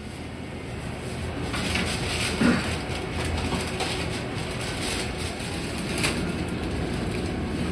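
Steady rumble and rattle of a train in motion, with a few faint clicks.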